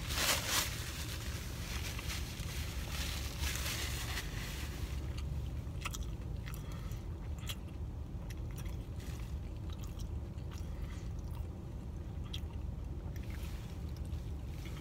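A person chewing a bacon, egg and cheese muffin sandwich: soft wet chewing with scattered mouth clicks, after a short burst of noise at the very start, over a steady low hum.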